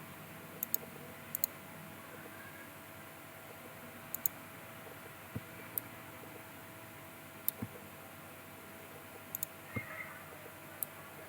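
Computer mouse clicks, scattered single clicks and quick double-clicks, with a few soft low knocks over a faint steady hum.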